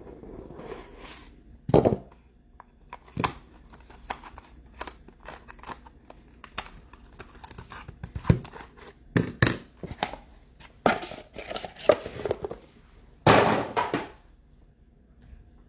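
Trading-card packs and box being opened and handled: a few sharp thumps, then crinkling and tearing of pack wrappers, loudest about thirteen seconds in.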